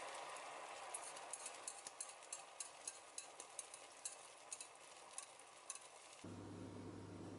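Faint crackling and popping of oil heating in a pan over a gas flame: irregular sharp ticks over a steady hiss. About six seconds in, this cuts off suddenly and a steady low hum takes over.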